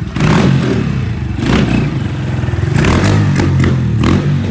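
Honda motorcycle engine running and revved several times, with sharp clattering knocks mixed in as it is ridden off.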